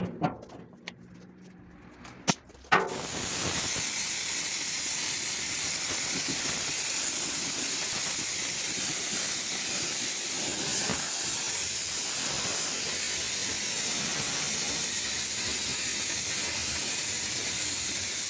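Gravity-feed compressed-air spray gun spraying a thinned KPO stone-chip texture coating, a steady hiss of air and paint that starts about three seconds in, after two short bursts.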